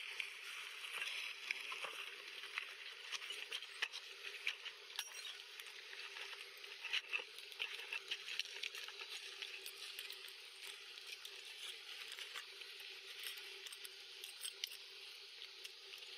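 Faint outdoor ambience: a steady high hiss over a faint low hum, with many small irregular clicks and ticks scattered through it.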